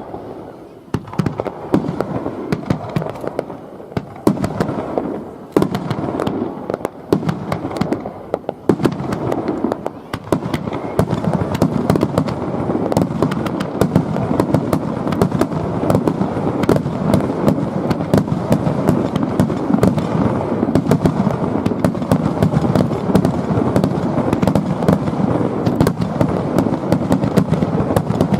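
Aerial fireworks bursting: separate booms and crackles for the first ten seconds or so, then a dense, rapid barrage of shell bursts that keeps going.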